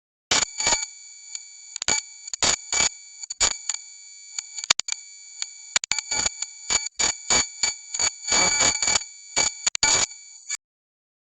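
Electronic noise sound effect: a steady high-pitched buzz of several tones, broken by irregular crackles and bursts of static, starting abruptly and cutting off suddenly near the end.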